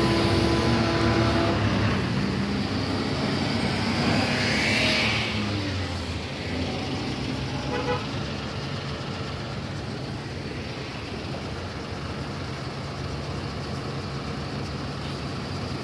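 Traffic on a hairpin bend: heavy diesel trucks running slowly, with other vehicles passing. A horn sounds briefly at the start, and the traffic noise eases off a little after about five seconds.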